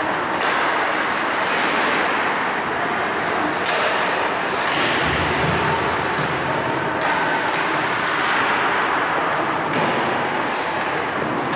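Ice hockey rink sound: skate blades scraping the ice in repeated hissing strokes over a steady noise from the arena hall, with a dull thud about five seconds in.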